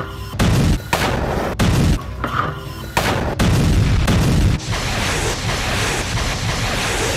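Music mixed with heavy explosion booms and bursts of gunfire, chopped into short segments by abrupt cuts every second or so. About halfway through it settles into a steady, loud rushing rumble.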